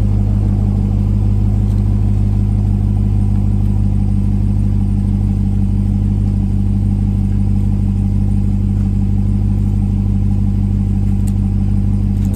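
Steady low mechanical hum, loud and unchanging, like an engine or machine running close by.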